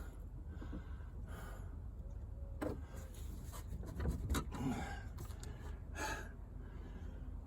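Faint, scattered knocks and scrapes of a 1984 C4 Corvette's hood being handled and worked loose by hand.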